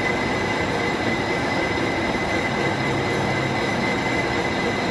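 A workshop machine running steadily, a constant noise with a thin high whine held through it.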